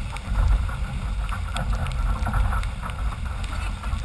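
Wind buffeting the microphone of a GoPro on a Formula 18 catamaran sailing fast, with the rush of water and spray off the hull and scattered spatters of drops.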